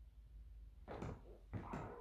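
Old wooden floorboards creaking underfoot: two short creaks, one about a second in and a longer one near the end.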